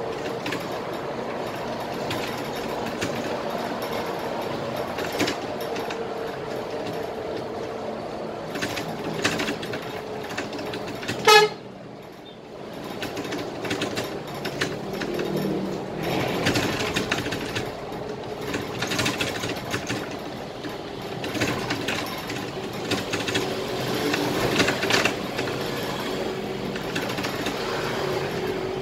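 Scania K320IA bus running in traffic, heard from the driver's cab: a steady engine and road noise with rattles. About eleven seconds in, one short, loud horn toot.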